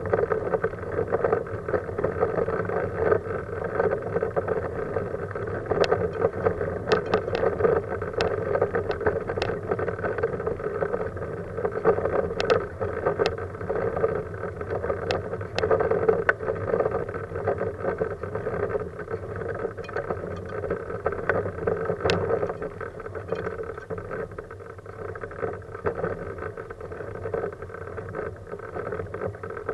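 Kuschall K-Series manual wheelchair with a FreeWheel front wheel rolling on asphalt: a steady rolling rumble and frame rattle, with scattered sharp clicks and ticks along the way.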